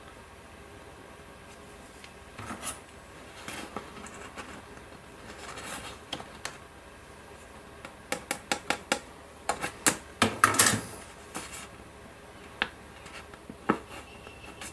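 Handling of a grey plastic model-kit sprue and a paper instruction sheet: scattered light clicks, taps and paper rustling. It is busiest a little past halfway, with a quick run of sharp plastic clicks and a rustle. Near the end come a few pen strokes on the paper.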